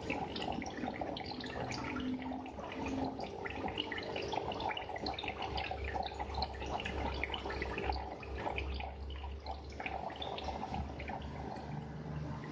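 Aquarium water trickling and bubbling, a dense run of small irregular splashes and drips, over a steady low hum, with a low rumble joining about five seconds in.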